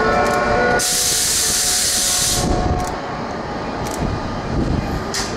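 A locomotive-hauled train pulling out: a 185-series coach towed by an EF64 electric locomotive rolls away over the rails with a low rumble. A steady whine of several tones is heard at first, cut about a second in by a loud hiss of released air lasting under two seconds.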